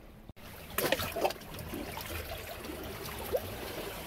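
Water splashing and trickling as a hand holds a caught fish down in a shallow rock pool to release it, with a few sharper splashes about a second in.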